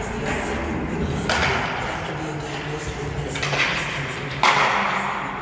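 Roller hockey play: three sharp knocks of stick and puck hits, the loudest near the end, over a steady rink background.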